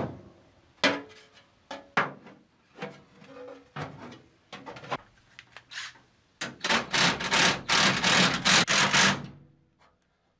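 Painted metal body panels knocking and clunking as they are set into place, then a cordless impact driver rattling for about three seconds, starting a little past halfway, as it drives in fasteners.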